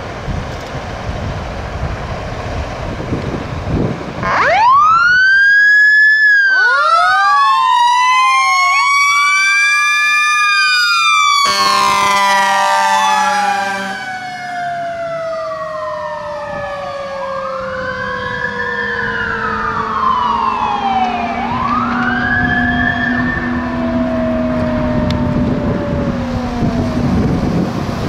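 Fire engine responding with lights and sirens. About four seconds in, its sirens start: an electronic wail and a Federal Q mechanical siren winding up. About twelve seconds in, the air horn gives a two-second blast. The Q then slowly winds down while the electronic siren keeps wailing.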